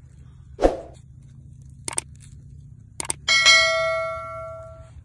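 Subscribe-button sound effect: a thump, then two pairs of mouse clicks, then a bell ding that rings and fades over about a second and a half.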